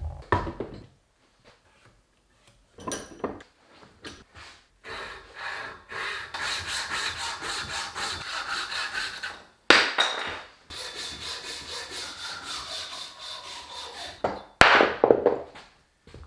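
Hand saw cutting through a piece of wood in quick, regular strokes, with handling noises and a couple of loud knocks as the wood is moved and set down.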